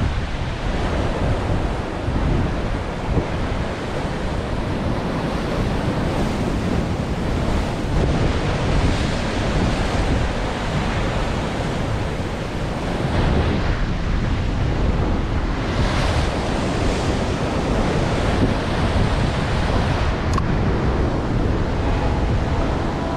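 Sea surf washing against a rocky shore, mixed with wind buffeting the microphone: a steady rush of noise that swells a few times as waves come in.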